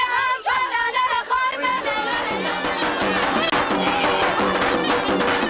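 Kurdish folk dance music for the halay, dense and rhythmic with a steady low beat, taking over about two seconds in from a group of voices singing.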